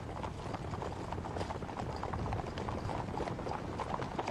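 Many horses galloping together: a dense, uneven clatter of hoofbeats over a low rumble.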